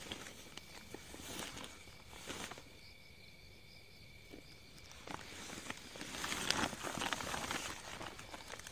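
Faint rustling and crinkling of a woven plastic sack being moved over grass with a snake hook, with a steady insect trill underneath. The rustling drops away in the middle and picks up again from about five seconds in.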